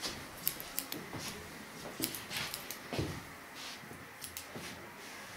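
Hairdressing scissors snipping hair on a short haircut: light, irregular clicks and snips, with a few soft rustles in between.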